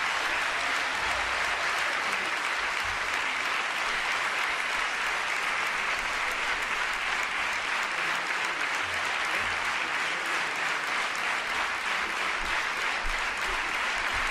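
Theatre audience applauding steadily after an operetta song, a dense even clapping that holds at one level throughout.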